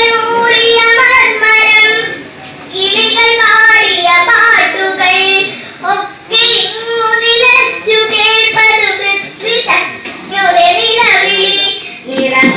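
A young girl singing solo into a microphone, with no instruments, in held melodic phrases broken by short pauses for breath.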